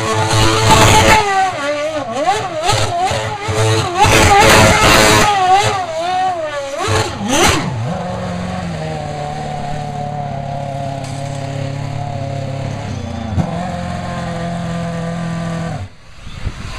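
Renault Formula One car doing smoky donuts: the engine revs hard, its pitch wavering quickly up and down as the rear tyres spin. About eight seconds in it drops to a steady idle, and the engine stops near the end.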